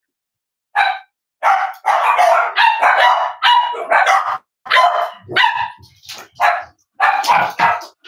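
Cavalier King Charles spaniel barking repeatedly, about a dozen sharp barks in quick runs with short breaks between them.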